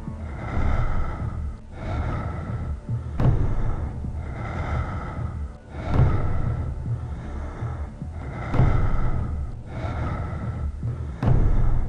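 A person breathing heavily close to the microphone, in slow, rhythmic breaths about every second and a half, with a low rumble underneath.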